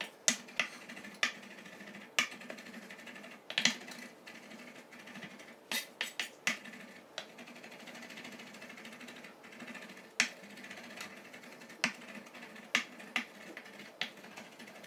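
Kitchen knife slicing rolled-up sage leaves, tapping the cutting board in irregular sharp knocks about one a second.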